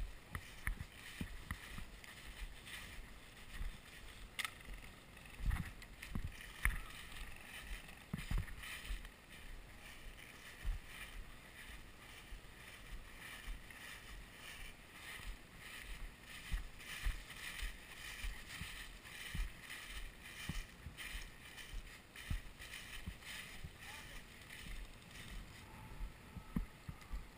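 Footsteps crunching through dry fallen leaves at a walking pace, with soft thuds of each step.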